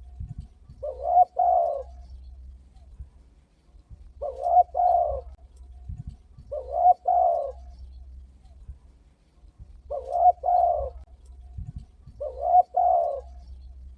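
Spotted dove (tekukur) cooing: one short phrase of several coos, sung five times about every two and a half to three seconds.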